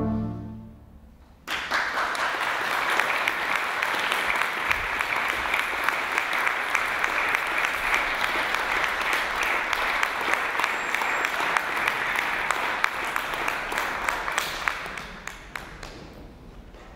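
The last held chord of the trumpets and organ dies away, then about a second and a half in an audience breaks into steady applause that fades out near the end.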